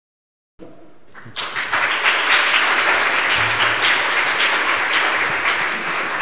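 Audience applauding: the clapping swells in a little over a second in and carries on steadily.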